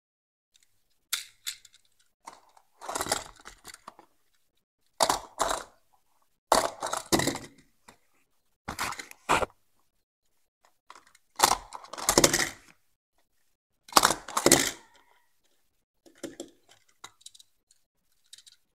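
Small die-cast toy car handled, flipped over and set down on cardboard: about ten short bursts of clicking, rattling handling noise with quiet gaps between.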